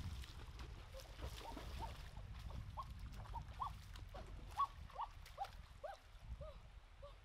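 Water splashing and sloshing as someone wades and strikes at a shallow stream, with a sharp splash about halfway through. Over it runs a string of short chirping calls, each rising and falling, a few a second.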